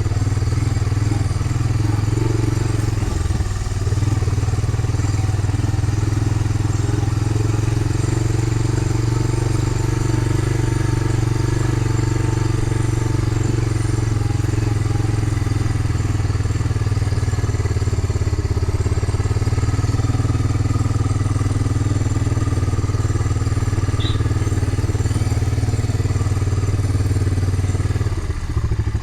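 Small off-road vehicle engine running steadily while riding along, with a constant low drone that dips briefly near the end.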